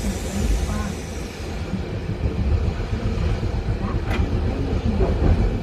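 Randen tram running along street track, heard from inside the car: a steady low rumble of wheels on the rails, with a single sharp click about four seconds in.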